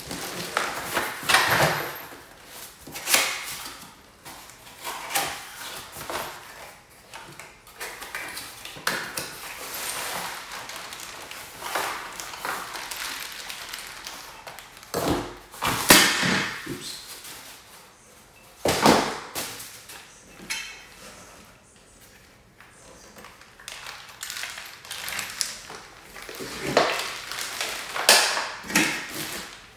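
Cardboard and plastic packaging being handled: an inner carton and packing pieces sliding and scraping against cardboard and foam, a plastic bag rustling, with occasional knocks, in irregular bursts.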